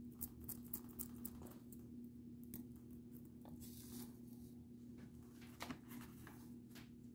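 Faint scraping and clicking of a small tweezer picking hairs out of the crisp skin of a roasted pig's head, over a steady low hum.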